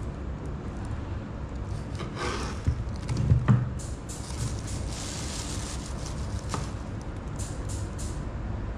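Kitchen knife cutting through cantaloupe rind and knocking on a wooden cutting board, with a scraping hiss about two seconds in and a few loud knocks a little after three seconds, over a steady low rumble.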